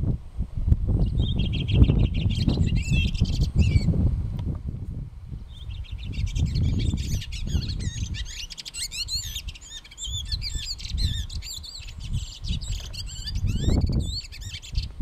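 A songbird singing fast, warbling phrases of quick up-and-down whistles, with a short pause about four seconds in. Wind rumbles and buffets the microphone throughout and is the loudest sound.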